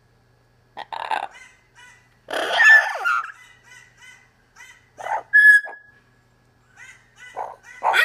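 Amazon parrots squawking and chattering in several short bursts, the loudest about two and a half and five and a half seconds in.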